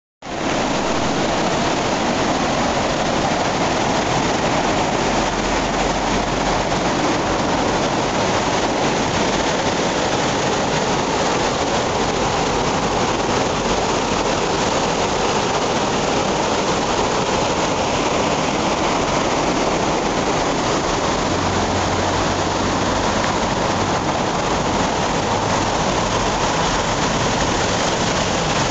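Rydal Beck in flood: a loud, steady rush of fast, swollen water.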